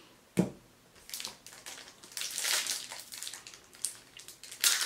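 A single thump about half a second in, then the foil wrapper of a trading-card pack crinkling and tearing as it is pulled open by hand, in irregular spurts.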